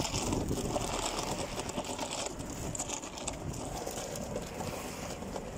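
Steady rushing wind noise on the microphone of a Huawei P Smart 2019 phone held out while its user rides along.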